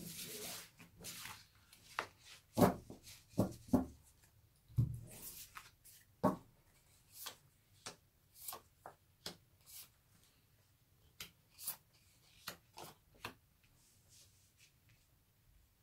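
Tarot cards being handled: a brief sliding hiss as the fanned deck is gathered, then cards drawn and laid down on the table one by one, a run of soft taps and flicks with the heaviest thuds between about two and seven seconds in and lighter ticks after.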